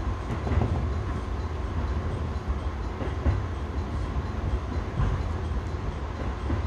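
Running noise of a 211 series electric train heard from inside its cab: a steady low rumble with a faint steady tone and a few wheel knocks over the track.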